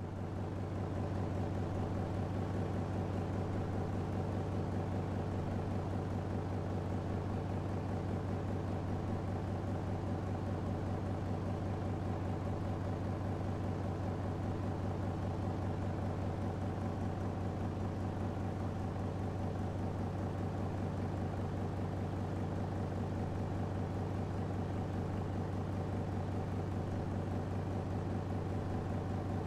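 A steady, unchanging mechanical drone: a strong deep hum with a stack of steady tones above it, like an idling engine.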